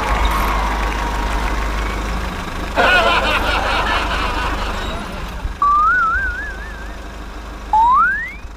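Cartoon sound effects over a steady low rumble. There is a short warbling burst about three seconds in, then a wobbling whistle-like tone, then a quick rising slide-whistle glide near the end.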